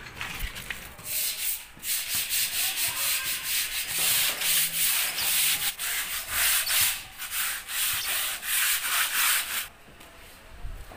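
Sandpaper rubbed by hand over rusty steel channel bars in quick, repeated back-and-forth strokes, sanding off the rust before rust remover goes on again. The strokes stop shortly before the end.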